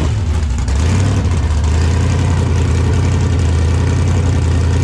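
Sand rail's engine just fired up and idling loudly with a steady low rumble, settling into an even idle within the first second.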